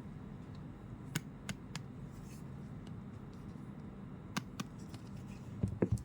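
Hands handling the unboxed items: a few sharp clicks and taps, then several soft knocks close together near the end as things are set down.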